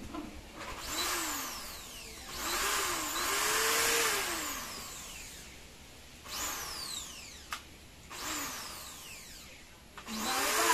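Brand-new corded Bosch impact drill run with no bit in the chuck, its trigger pulled in about six short bursts. Each time the motor whines up in pitch and then winds down, with a sharp click between two of the bursts. This is a first test run to check that the drill works.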